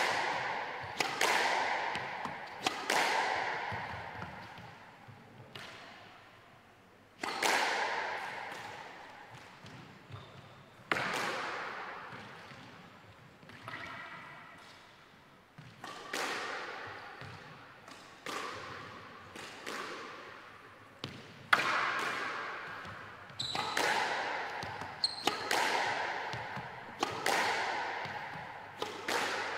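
Squash ball being hit back and forth in a warm-up, each racket strike and wall hit a sharp smack that rings on in the court's echo, coming every second or two with a pause partway through. A few short high squeaks sound in between.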